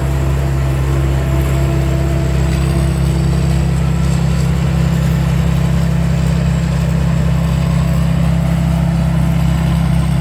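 Chao Chang rice combine harvester running steadily while harvesting. It is a continuous loud engine and machinery drone with a faint steady whine above it.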